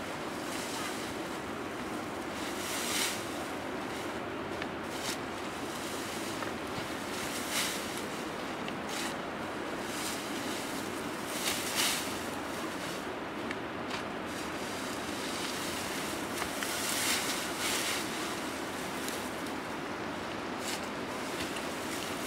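Dry straw rustling in short bursts, about six times, as it is pulled up and gathered by hand, over a steady rushing background noise.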